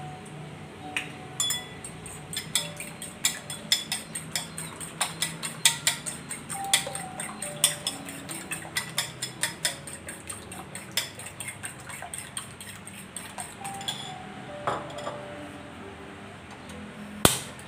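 Metal fork beating eggs in a ceramic bowl: rapid clinking of the fork against the bowl, several strikes a second, which stops about three-quarters of the way through. One louder clink comes near the end.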